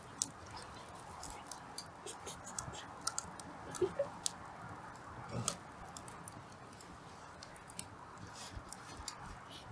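Hardwood fire crackling and popping in a small fire pit, with irregular sharp cracks and a few louder pops.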